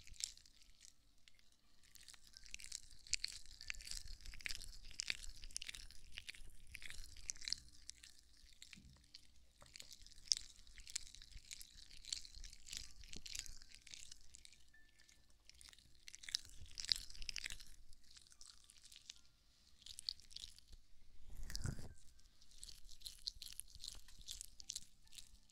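Close-miked ASMR scratching and rubbing: crisp, crackly scratches in bursts of a few seconds with short pauses between them. There is one low thump about 21 seconds in.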